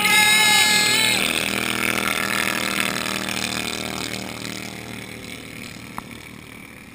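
Racing lawn tractor's small engine running hard close by at first, then fading steadily as the mower drives away across the ice.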